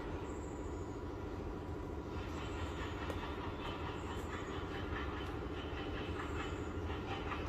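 Steady rumble of a moving vehicle, with faint repeated ticking over it from about two seconds in.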